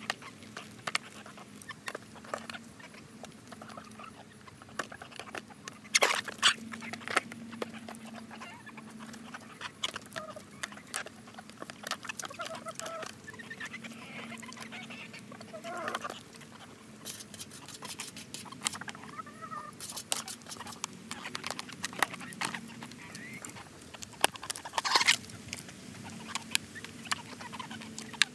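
Chickens pecking cake out of an aluminium foil pan: a steady scatter of sharp beak taps and clicks on the foil, with occasional soft clucks.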